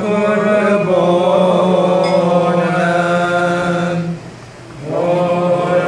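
A man's voice chanting in long held notes, pausing briefly for breath about four seconds in before the chant resumes.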